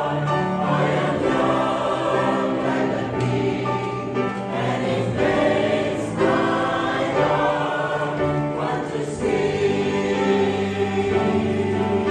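Mixed church choir of men and women singing in parts, holding long sustained chords.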